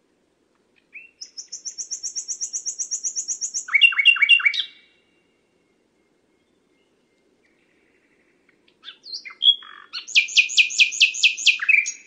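Common nightingale singing two phrases a few seconds apart. Each phrase is a fast run of repeated high notes, about seven a second; the first ends in a few lower, louder notes.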